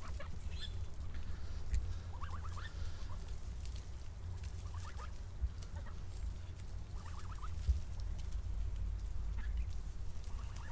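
A bird calling in short clucking bursts of a few quick notes, repeating about every two and a half seconds, over a steady low rumble.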